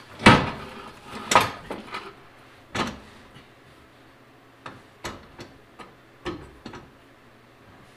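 Metal clunks and knocks from a steel anti-roll bar being shifted about on a mechanic's creeper under a car: three loud knocks in the first three seconds, then a run of lighter clicks.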